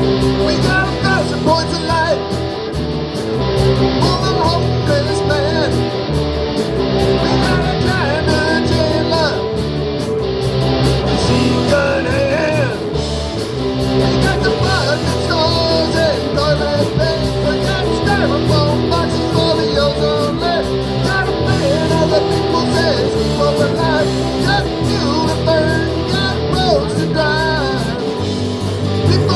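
Rock song with guitars and a singing voice, playing as a soundtrack.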